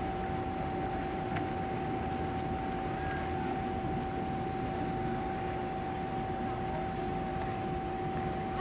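Steady engine drone with a constant high whine, unchanged throughout.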